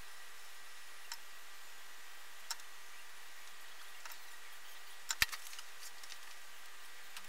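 Scattered small clicks and taps from hands handling wires and tools on a table, over a steady hiss. A sharper knock comes a little past five seconds in, amid a short cluster of clicks.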